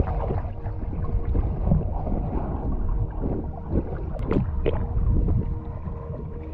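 Muffled underwater sound of a freediver swimming, picked up through the camera housing: a low rumble of moving water with a faint steady hum. A few sharp clicks come at about four to five seconds in.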